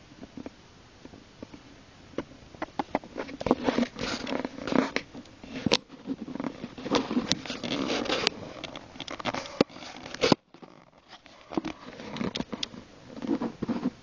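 Irregular rustling and crackling with many sharp clicks, heaviest through the middle, breaking off for about a second just past the middle before starting again.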